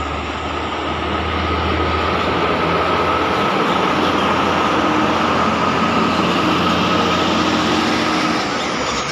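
Heavy vehicle or machine running close by: a steady engine hum with a whine over broad mechanical noise. It grows louder through the middle and drops away near the end.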